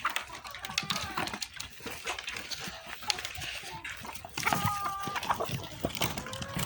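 Chickens clucking and calling, with many short clicks and scratching noises; a held two-note call stands out about four and a half seconds in.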